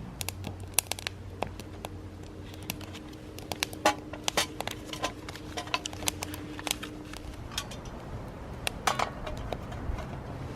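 Irregular sharp crackles and pops from a small fire of seasoned wood burning in a Hobo Stove used for frying bacon.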